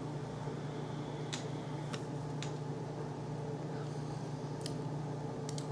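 Steady low mechanical hum with a few faint, sharp ticks scattered through it.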